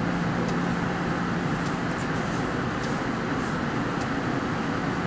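MBTA Green Line light-rail train running: a steady rumble with a steady low hum that drops away about two seconds in, and faint ticks now and then.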